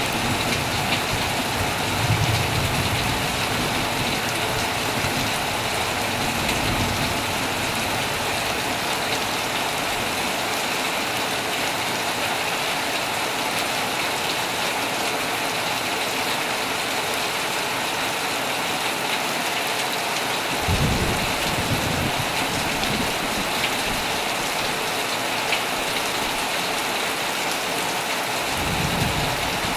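Heavy rain falling steadily on a tent, with low rumbles of thunder coming and going a few times, the clearest about two-thirds of the way through and near the end.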